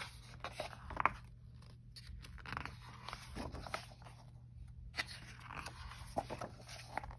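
Pages of a picture book being handled and turned: quiet, irregular paper rustling with a few light taps.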